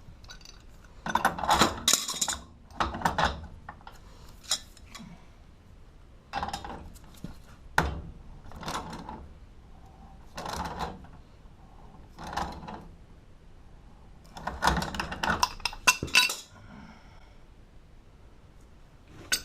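Metal hand tools working on gas valve fittings: short bursts of metallic clinking and scraping about every one to two seconds, with a longer run of sharp clicks near the end.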